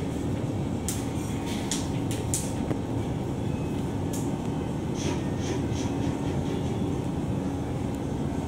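Steady low rumble and hum of a passenger ferry's engines, heard from on board, with a few faint brief ticks about a second in and again near the middle.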